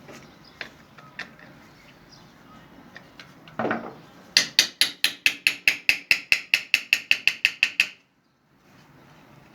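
A ratchet tool clicking rapidly and evenly, about six clicks a second for three or four seconds, as it drives in a bolt holding a washing machine's spin-dryer motor. Just before the clicking there is a short rustle as the tool is set on the bolt.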